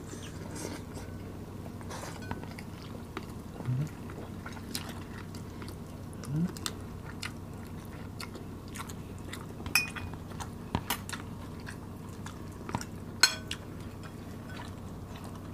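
Close-miked mukbang eating sounds: chewing of sticky rice and roast chicken, with scattered sharp clinks of metal spoons against a glass dish and plates. A steady low hum runs underneath, and a couple of short hummed murmurs come about four and six seconds in.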